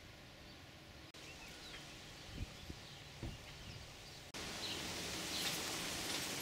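Quiet outdoor ambience with small birds chirping and a few low thumps. From about four seconds in, a steady hiss of water spraying from a garden hose onto a motorhome.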